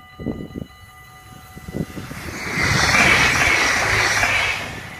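Level-crossing bells ringing as a Stadler GTW diesel-electric railcar passes close by. The rush of its wheels and engine swells about two seconds in, is loudest around three seconds, and falls away near the end.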